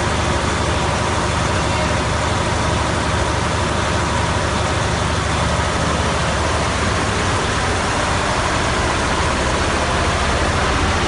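The air-cooled KHD Deutz V8 diesel of a MAN KAT1 military truck, running steadily.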